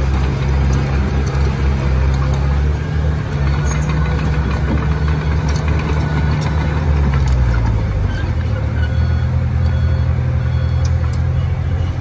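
Heavy diesel engines of a small crawler dozer and a CAT 320D excavator running together, one of them dropping in speed about seven seconds in, with scattered light metallic clinks.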